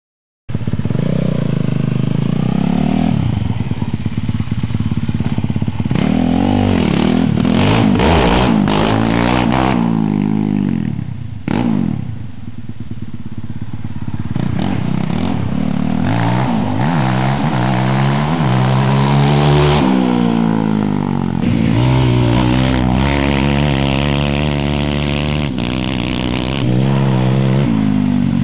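Cannondale Moto 440 ATV's single-cylinder four-stroke engine on its stock exhaust, running under way with the revs repeatedly rising and falling. It eases off for a few seconds partway through, then pulls on steadily again.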